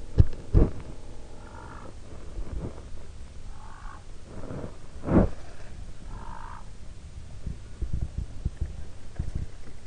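Several short, nasal waterfowl calls, a second or two apart, over low rumbling of wind on the microphone. Sharp thumps come near the start and about halfway through, and these are the loudest sounds.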